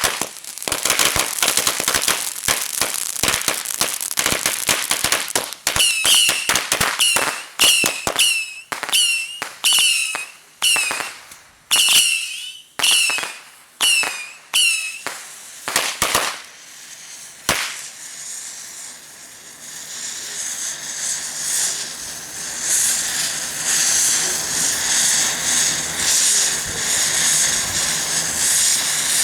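Consumer fireworks going off: a rapid string of firecracker pops, then a run of short whistling squeals, each with a crack, and a few single loud bangs. After that a firework fountain takes over with a steady hiss.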